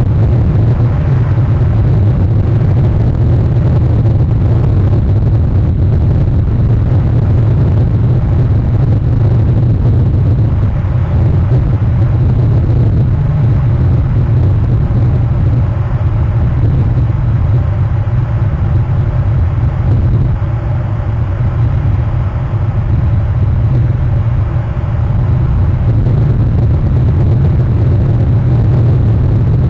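A loud, steady low rumble with a fainter hiss above it, unchanging throughout, with no calls or distinct events.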